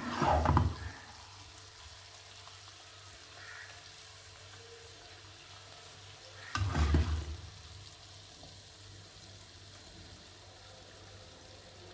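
Spatula scooping cooked vegetables out of a non-stick wok and onto a plate: two short bursts of scraping and clatter, one at the start and one a little past halfway, over a faint steady hiss.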